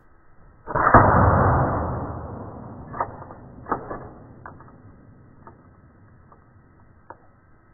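Slowed-down air gun shot with the pellet smashing a TomTom navigator's screen: one deep, drawn-out blast about a second in that fades over a couple of seconds, then a handful of scattered sharp clicks.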